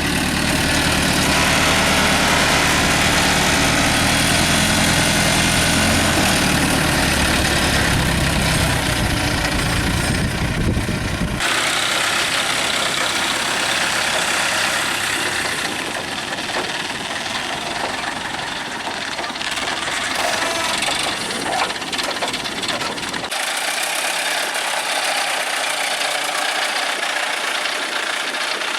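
Construction machine's diesel engine running steadily. The deep low engine note drops away abruptly about eleven seconds in, and the sound changes again sharply about twenty-three seconds in, leaving mostly higher mechanical noise.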